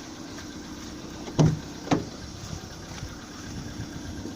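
Two heavy thumps about half a second apart a little over a second in, over the low steady hum of a Volkswagen Polo Sedan's engine idling after a cold start.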